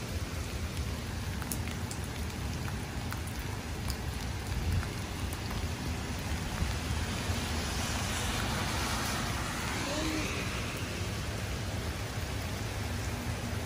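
Steady heavy rain falling, with a few sharp drop clicks. A louder rush of hiss rises and fades about two-thirds of the way through.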